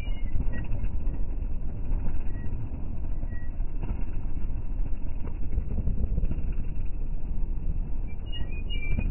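Dirt bike and ATV engines idling amid street traffic, a steady low rumble.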